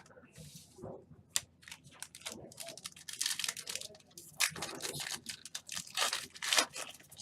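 Foil trading-card pack wrapper being torn and crinkled, with cards being handled and shuffled: a run of close rustling and crackling strokes, busiest in the second half.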